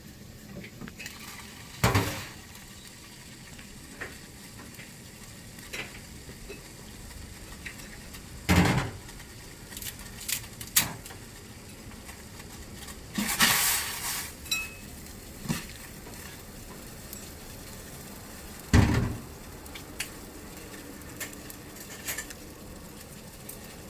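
Kitchen sounds of instant ramen being prepared: a steady hiss like a pot on the heat, with occasional clinks and knocks of a pot and utensils, the loudest about 2, 8, 13 and 19 seconds in.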